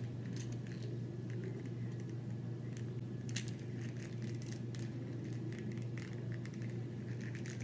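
Faint, scattered clicks and scratches of fingers handling a small plastic Monster High Secret Creepers toy pet while working a rubber band off it, over a steady low hum.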